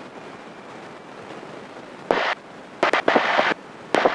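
Steady hiss of a light propeller airplane's engine and cabin noise, heard through the headset intercom, then from about two seconds in, three abrupt bursts of loud hiss with sharp clicks as the intercom or radio cuts in and out.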